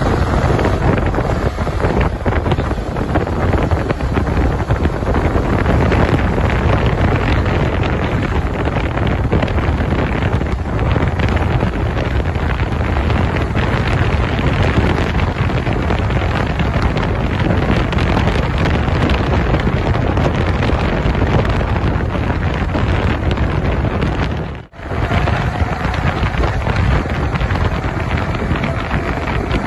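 Wind buffeting the microphone on a Yamaha R15 V3 sport bike riding at speed, with the motorcycle's engine running under it. The sound cuts out for a moment near the end.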